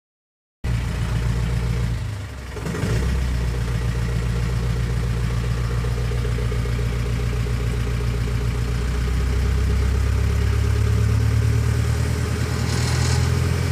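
Engine of a 45 kVA generator set running steadily, starting abruptly at full level, with a brief drop and rough patch about two seconds in. A short hiss sounds near the end.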